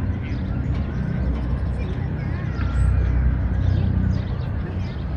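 City park ambience: a steady low rumble of distant city traffic under faint, indistinct voices, with birds chirping now and then.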